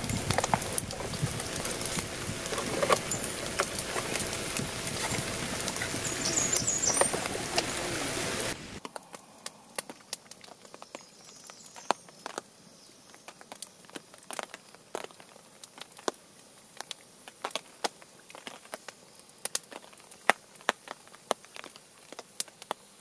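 Rain pattering steadily on a tarp shelter, with scattered small clicks, cutting off suddenly about nine seconds in. After that, a wood campfire crackles with sharp, irregular pops over a quiet background.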